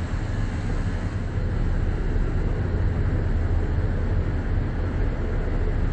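Steady low rumble of engines around a city harbour, from ferries and traffic, with no sharp events. It grows slightly louder about two seconds in.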